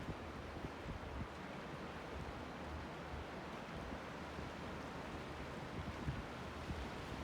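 Pacific surf washing over a rocky shore, a steady rushing, with wind buffeting the microphone in low rumbles.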